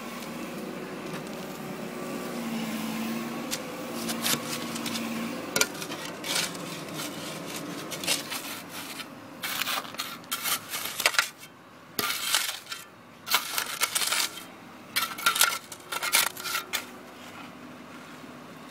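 Irregular clicks and scrapes of stones and gravel in dug soil, in clusters, over a faint steady machine hum that fades after the first few seconds.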